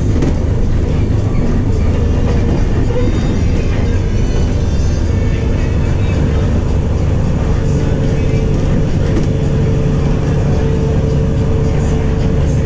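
Higer KLG6770G city bus under way, heard from inside the passenger cabin: its engine and driveline run with a steady low drone, and a steady higher whine grows stronger partway through.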